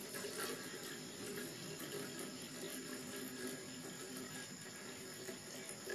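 Water running from a garden hose into a plastic watering can.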